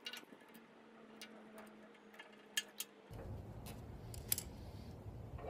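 Faint metallic clicks and ticks of an Allen key working the socket-head cap screws on top of a Bridgeport mill's knee jack screw, with a few sharper clicks about two and a half seconds in and again after four seconds.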